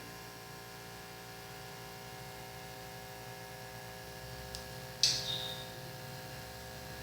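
DVD drive running with a steady hum made of many fixed tones, broken by a faint click about four and a half seconds in and a sharper click just after five seconds.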